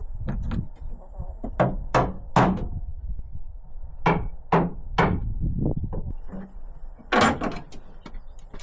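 Irregular metal knocks and clanks with short ringing after each, about a dozen strikes, from work freeing the bonnet hinges of a Land Rover Defender. The loudest blows come about two seconds in and again about seven seconds in.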